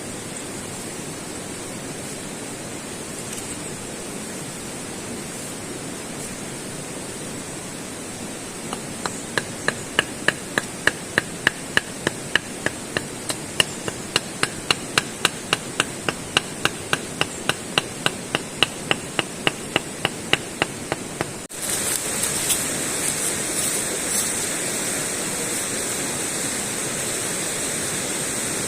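Regular sharp knocks, about three a second for some twelve seconds, over a steady rush of running water. The knocks stop abruptly at a cut, after which the water alone goes on.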